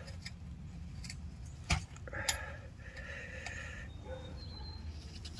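Handling and fitting of metal forge parts, with light clinks and one sharp click about two seconds in, over a low steady hum.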